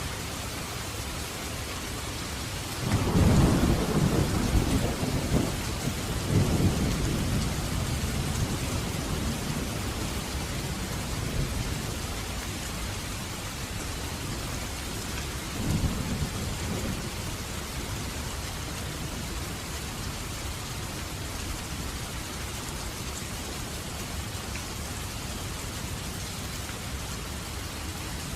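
Heavy rain falling steadily. About three seconds in, a loud roll of thunder rumbles for several seconds and dies away, and a shorter, fainter rumble follows about halfway through.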